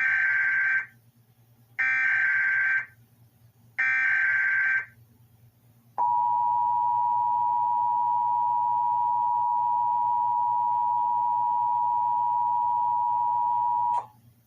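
Emergency Alert System tornado warning tones: three bursts of the digital SAME header, each about a second long with a raspy warble, then the steady two-tone attention signal held for about eight seconds.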